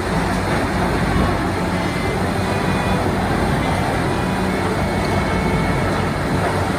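Heavy machinery running steadily: a loud, even mechanical din with a low hum underneath.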